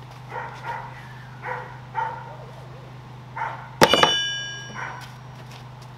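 A dog barks several short times. About four seconds in, a long steel wrench bar clangs down onto the ground and rings for about a second.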